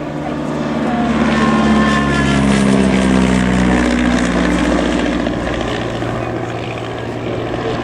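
Royal Aircraft Factory SE5a's 200 hp Wolseley Viper V8 engine passing overhead. The engine note swells, drops in pitch as the biplane goes by about two to four seconds in, then fades slowly.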